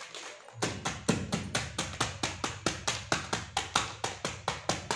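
Wooden rolling pin striking a packet of Oreo biscuits lying on a rug, crushing them to crumbs. The taps come in a steady run of about four to five a second, starting about half a second in.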